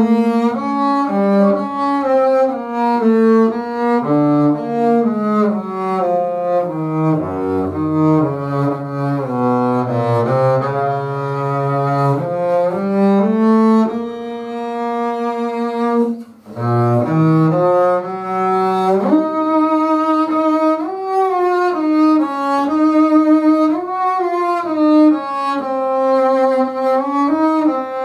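Solo double bass played with the bow, a slow, melancholy melody in a minor key made of long sustained notes. A brief break comes about sixteen seconds in, after which the melody moves up into a higher register.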